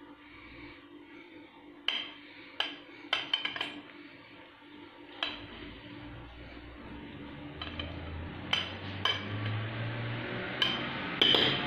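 Metal spoon spreading minced meat in an oval glass baking dish: soft scraping with irregular sharp clinks where the spoon strikes the glass, about eight clinks in all, several in quick succession early on and a few more towards the end.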